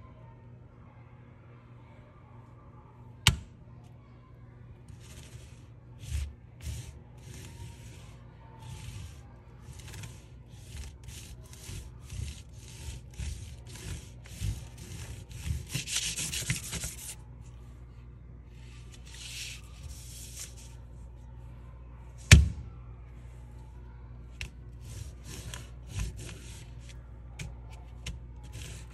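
The side of a wax crayon is rubbed back and forth over paper laid on a texture plate, making a quick run of short scratchy strokes that comes in bursts. A sharp knock sounds twice, once near the start and once about two-thirds of the way through.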